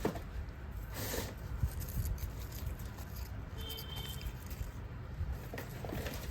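Handling noises as plastic toy train parts and packaging are moved about: soft rustles and light taps, with a short rustle about a second in.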